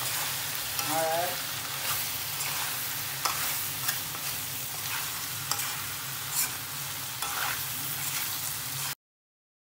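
Chicken, potato and carrot pieces sizzling as they sauté in a frying pan, stirred with a spoon that scrapes and clicks against the pan now and then. The sound cuts off suddenly near the end.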